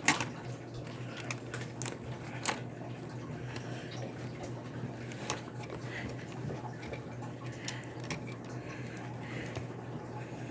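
Scattered light clicks and taps from small iBook G4 laptop parts being handled during reassembly, over a steady low hum.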